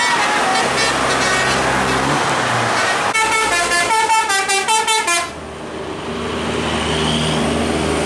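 Indonesian bus telolet horn playing a melody of quick rising and falling notes. About three seconds in the tune turns faster and choppier, then cuts off suddenly after about five seconds. A bus's diesel engine then runs as the bus drives off.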